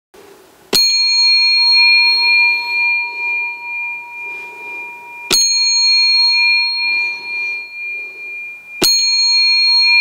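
A small bell struck three times, about four seconds apart. Each strike rings on with a clear, steady tone that is still sounding when the next strike comes. The strikes sound the 'dawn bell' that opens the column.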